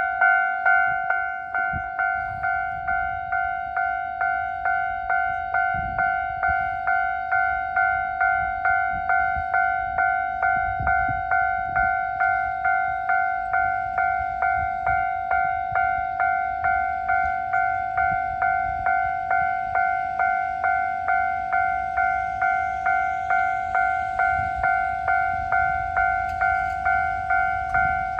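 Railway level-crossing warning bell ringing steadily at about two strikes a second, with a train's low rumble underneath.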